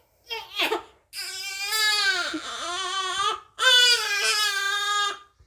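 Newborn baby crying: a short whimpering cry, then two long wavering wails of about two seconds each, with a third wail starting at the very end.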